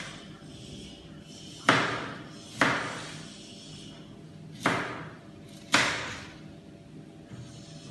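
Four sharp knife chops on a cutting board set on a stainless steel worktable, irregularly spaced, each dying away quickly.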